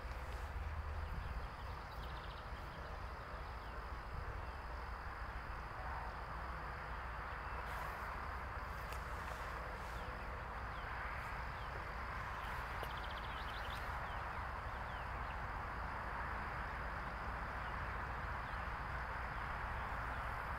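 Steady outdoor background hiss with a low rumble beneath, and a few faint short bird chirps now and then.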